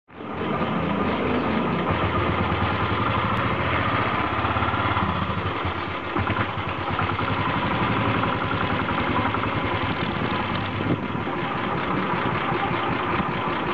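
Motorcycle engine running steadily at low speed, heard from on the bike, with a fast even pulsing beat under its low note.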